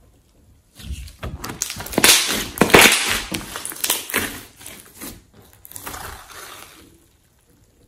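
A large lump of glossy slime squeezed and kneaded by hands: a dense run of sticky clicks and pops that starts about a second in, is loudest in the middle and fades away near the end.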